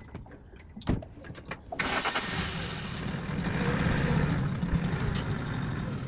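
An engine starts about two seconds in and keeps running, preceded by a single knock about a second in.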